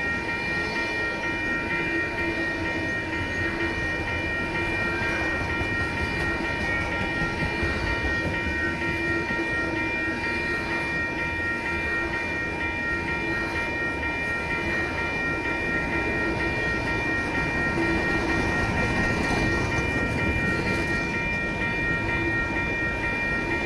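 Union Pacific intermodal freight train's container cars rolling past: a steady rumble and rattle of steel wheels on the rails, with a steady high-pitched tone over it.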